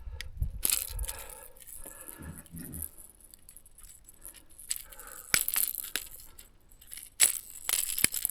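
Scattered sharp clicks and light metallic rattles of fishing tackle being handled: the treble hooks and body of a crankbait knocking while the hooks are worked free.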